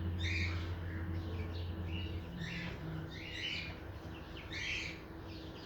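Chicks peeping: short high chirps repeated about once a second, with a low hum underneath for the first two seconds.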